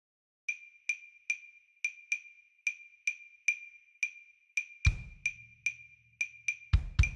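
Percussive music: a high, dry wood block taps an uneven, syncopated pattern of about two to three strokes a second, joined by a deep bass drum hit about five seconds in and two more close together near the end.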